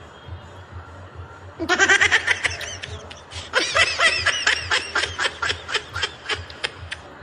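A person laughing: a rapid, high-pitched bout of ha-ha pulses, then a brief pause and a longer second bout that thins out into fewer, spaced pulses.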